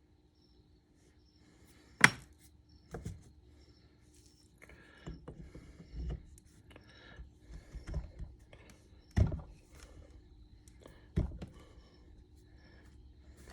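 Sharp clicks and knocks of brake caliper parts being handled, with softer scraping and fiddling in between, as pads and retaining pins are fitted into a Girling brake caliper. The loudest knock comes about two seconds in, and others follow near three, nine and eleven seconds.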